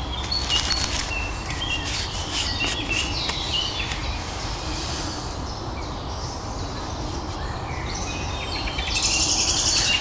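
Woodland birds chirping and singing, many short high calls, with clicks and rustling from things being handled. A short burst of rustling comes about nine seconds in.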